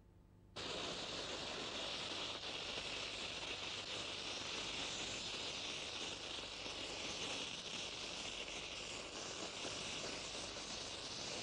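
Water rushing, a steady hiss that cuts in suddenly about half a second in and then holds even.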